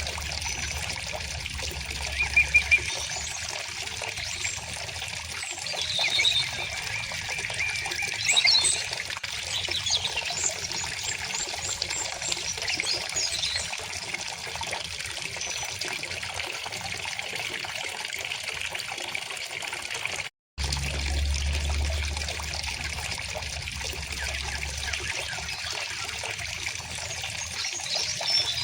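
River water trickling and flowing steadily over stones, with small songbirds chirping in short bursts at intervals. The sound cuts out completely for a split second about two-thirds of the way through.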